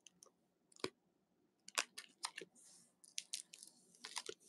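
Plastic sleeve pages of a trading-card binder crinkling and clicking as they are handled and flipped: a string of sharp crackles with soft rustling between them.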